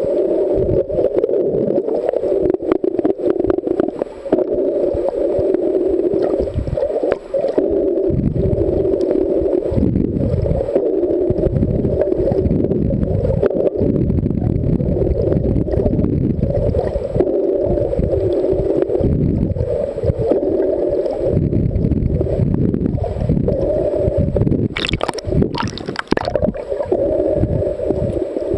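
Muffled underwater water noise picked up by a submerged camera: a steady low hum over surging, gurgling rumble. A brief higher hiss comes about 25 seconds in.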